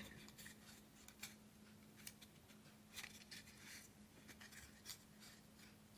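Near silence: a few faint, light clicks and rustles of small craft pieces being handled and pressed into place, over a low steady hum.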